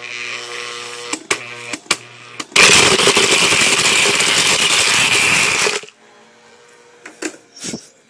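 Blender motor running at full speed for about three seconds, churning a jar packed with shredded cardboard, then cutting off suddenly. Before it starts, a fainter steady hum broken by several sharp knocks.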